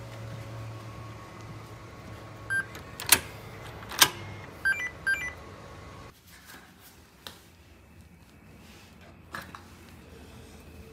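Electronic lock on a front door handle being worked by pressing its button: a short beep, two sharp clicks about a second apart, then a few quick electronic beeps. A few faint knocks and shuffles follow.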